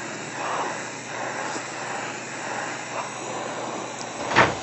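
Oxy-acetylene torch flame, set close to neutral, burning steadily with an even rushing hiss while preheating steel tubing. A short loud burst of noise cuts in near the end.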